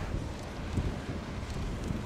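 Wind buffeting the microphone: an uneven, gusty low rumble of noise with no clear tones.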